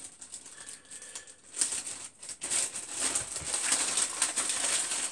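Clear plastic bag crinkling and rustling as it is handled and opened. It is quiet at first and becomes a dense, continuous crackle about a second and a half in.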